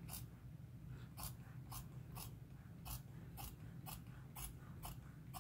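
Long tailor's shears snipping through white fabric on a cutting table, a short sharp snip about twice a second. The tailor says the shears have gone blunt and need sharpening again.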